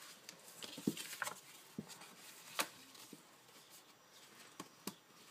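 Paper and card being handled and pressed into place on a desk: a few faint, scattered taps and light rustles.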